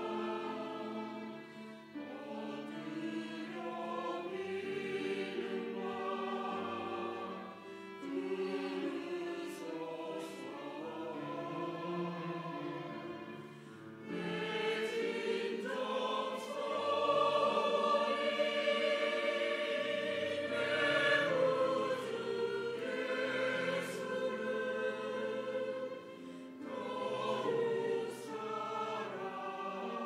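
Mixed church choir singing a hymn anthem in Korean, with violin accompaniment, in long held phrases separated by short breaths. The singing swells louder about halfway through.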